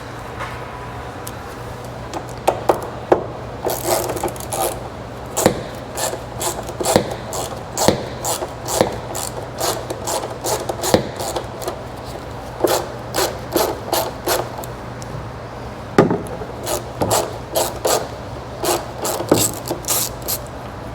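Hand tools at work: an irregular series of short scraping and knocking strokes, some in quick runs and a few sharper single knocks, over a steady low hum.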